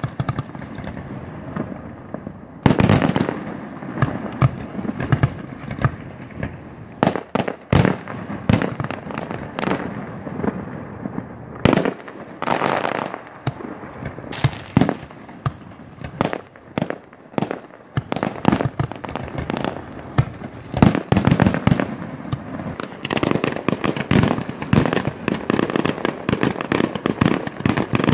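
Fireworks display: aerial shells launching and bursting in sharp booms, with crackle between them. The bangs come a few seconds apart at first, then thicken into a rapid, near-continuous barrage about two thirds of the way in.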